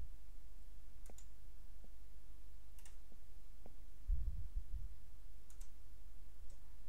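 Several faint, spaced computer mouse-button clicks as a file is selected and dragged from one folder window to another, with a short low thump about four seconds in, over a steady low hum.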